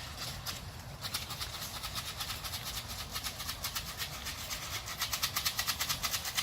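Grain feed rattling in a plastic box shaken in a quick, steady rhythm, starting about a second in and growing louder. It is the feed call that tells young racing homers it is feeding time.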